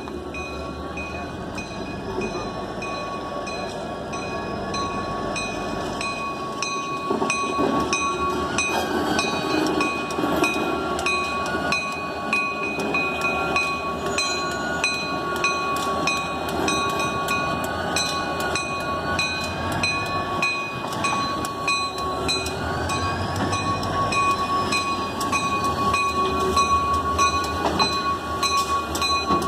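Western Maryland diesel locomotive running and growing louder from about seven seconds in as it rolls in and pulls onto a turntable. A bell clangs in a steady, even rhythm throughout.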